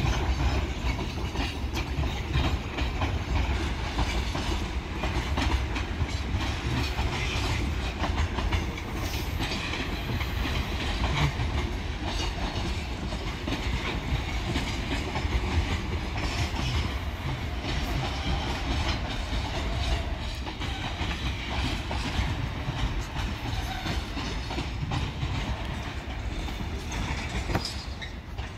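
Container freight train passing, a steady rumble with the wagons' wheels clicking over the rail joints.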